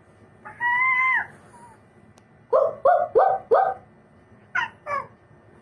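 A person's voice imitating a dog: one drawn-out howl-like call, then four quick barks, then two short higher yelps near the end.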